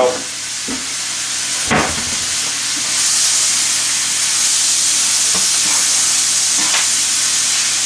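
Julienned leeks and carrots sizzling in hot oil in a sauté pan, just topped up with more oil, while metal tongs toss them with a few knocks against the pan. The sizzle grows louder about three seconds in.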